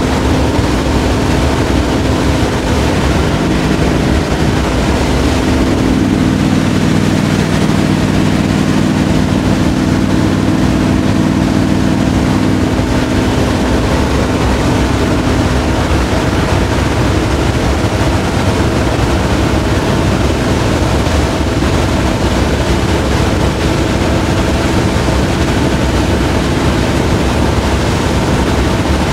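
Engine, tyre and wind noise inside the cab of a Divco milk truck cruising on a highway: a loud, steady drone. The engine's hum drops back about halfway through while the road and wind noise carry on.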